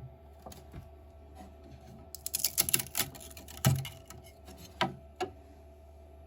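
Light, sharp clicks and taps of hard objects being handled, with a quick flurry of them about two seconds in and then a few single knocks, over a low steady hum.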